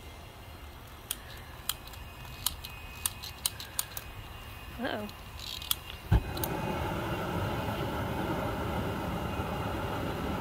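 Long-reach lighter's igniter trigger clicking about ten times, then a low whump as the propane burner catches about six seconds in, followed by the steady rush of the burner flame.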